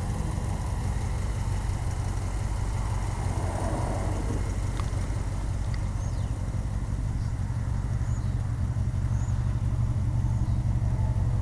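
1959 Ford Thunderbird's V8 engine idling steadily.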